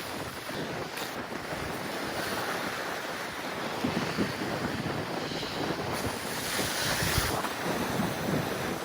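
Sea waves washing on the rocks, with gusty wind buffeting the microphone in irregular low rumbles.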